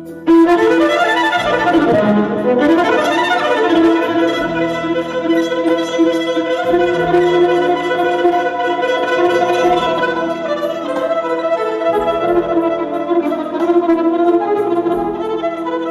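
Electric violin bowed in an improvised lăutar-style melody, coming in loudly just after the start, with sliding notes and sustained held tones.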